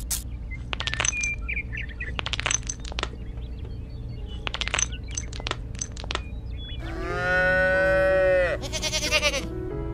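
A cow mooing once, about seven seconds in, a long call that falls slightly at its end, over background music.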